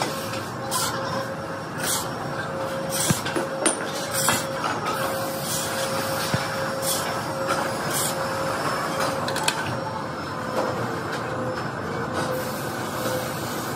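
Factory machinery running: a steady mechanical hum with a faint steady whine, broken by short sharp clicking or hissing noises about once a second.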